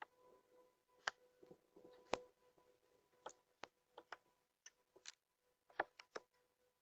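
Near silence broken by sharp single clicks or ticks, about fifteen of them at irregular spacing, over a faint steady hum.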